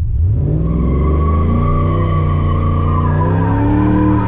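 GMC Sierra pickup's engine revved hard in first gear while doing a donut, with the rear tires squealing steadily against the pavement. The revs climb quickly about half a second in and are then held high.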